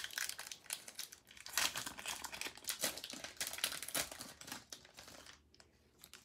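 Pokémon booster pack's foil wrapper crinkling and tearing as it is ripped open, a dense run of crackles that dies down about five seconds in.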